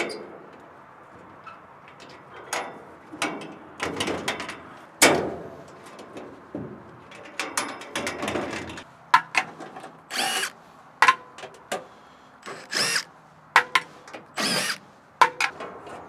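Sheet-metal access panels of an Onan generator enclosure being unfastened and lifted off: a string of metallic clicks and knocks, with three short scraping screeches of metal on metal in the second half.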